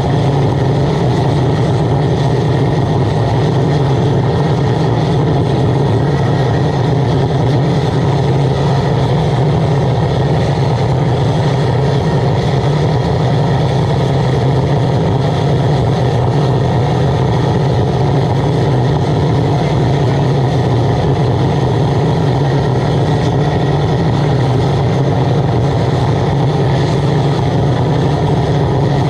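Waste oil burner firing under a pan of water: the blower and flame run steadily and loudly, with a strong low hum that does not change.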